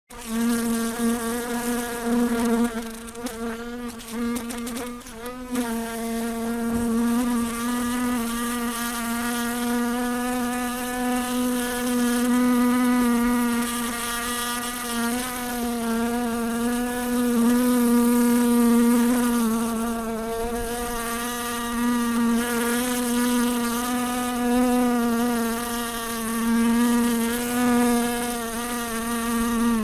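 A fly buzzing continuously in flight, a steady droning hum on one pitch that wavers slightly and swells and fades in loudness.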